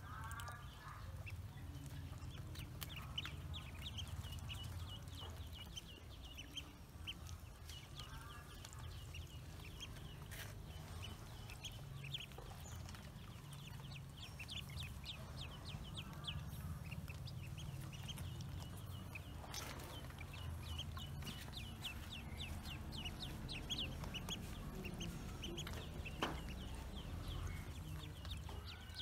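Domestic ducklings peeping continually, many short high chirps in quick succession. Every several seconds a short run of lower clucking calls joins in, over a steady low background rumble.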